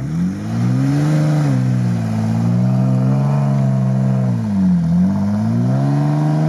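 Jeep Wrangler Rubicon engine revving up and held at high revs under load while trying to tow a stuck Lada Niva out of sand, its tyres spinning and throwing dirt. The revs ease off briefly about three-quarters of the way through, then climb again.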